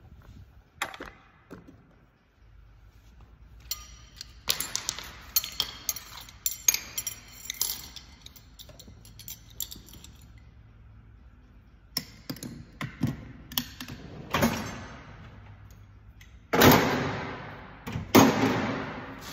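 Metal tools and car parts clinking, rattling and knocking as they are handled, followed near the end by two loud crashes a second and a half apart, each fading away.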